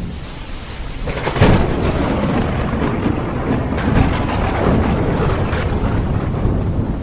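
Thunderclap in a rainstorm: a low rumble, then a sharp crack a little over a second in that rolls into loud rumbling thunder, with a second crash about four seconds in. Rain hiss runs underneath.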